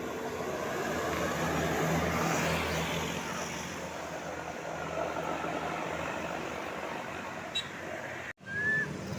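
Road traffic with a vehicle passing close by: its engine and tyre noise swells about two seconds in, then eases off. Near the end the sound cuts out abruptly and comes back with a short high tone.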